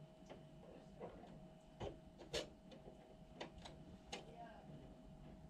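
Light clicks and taps of chicken eggs being handled and set down in a plastic incubator tray, about nine scattered over a few seconds, the loudest a little over two seconds in, over a faint steady hum.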